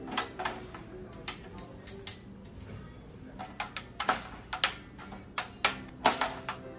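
Snare drum being tuned to very high tension: a string of light, sharp taps on the tight batter head between turns of the drum key, at uneven spacing, each with a brief ringing pitch. The head is near its tuning limit and barely rising in pitch.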